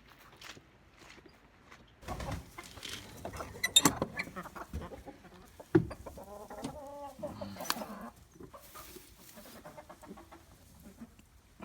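Chickens clucking, with a drawn-out pitched call about six seconds in, amid crunching and clicking sounds and one sharp knock just before the call.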